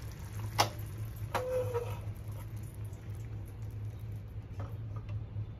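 Clinks and knocks of steel cookware being handled over a steady low hum. The sharpest knock comes about half a second in, a clink just after a second rings briefly, and there are faint taps near the end.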